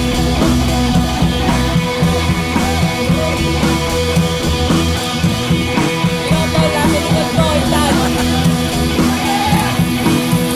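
Rock music with electric guitar and a drum kit, playing continuously at a steady level.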